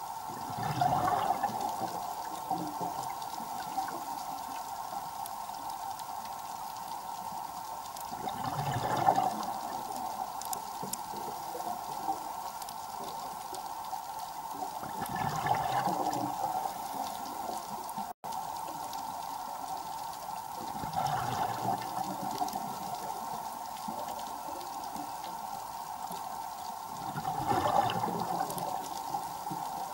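Underwater scuba breathing: the diver's exhaled bubbles burst from the regulator in a gush about every six to seven seconds, five times, over a steady hum.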